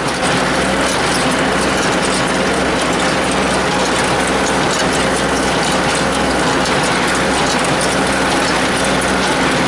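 New Holland small square baler running behind a tractor: a steady, dense mechanical clatter over the even hum of the tractor engine. The baler is running properly.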